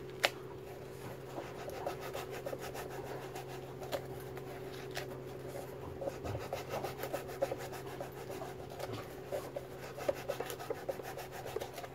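Knife blade scraping and shaving a groove into a fishing buoy: a run of short, uneven scraping strokes with a few sharper clicks, over a steady background hum.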